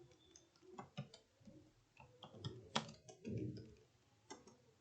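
Computer keyboard keys being pressed: irregular, unhurried clicks, one louder key click a little before the middle, followed by a short low thud.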